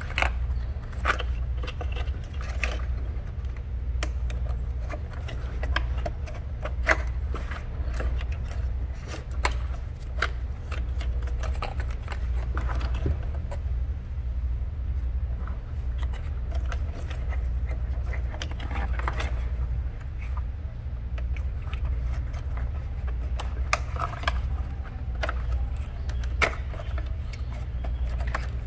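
Plastic engine wiring-harness connectors being handled and unclipped: scattered small clicks, taps and rattles over a steady low hum.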